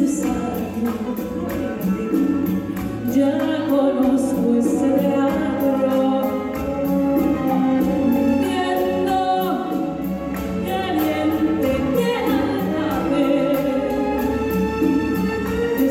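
A soprano singing a bolero-style tropical song into a microphone, accompanied by a full symphony orchestra with a steady percussion beat.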